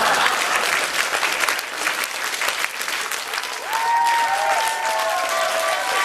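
Audience applauding after a comedy punchline, clapping steadily throughout.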